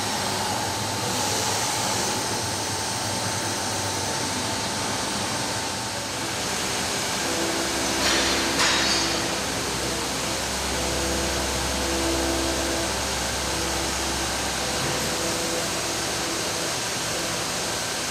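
Intermac Master 45 Plus CNC stone work centre machining a stone block: the tool spindle runs with water coolant jets spraying, a steady noisy rush, with a louder surge about eight seconds in.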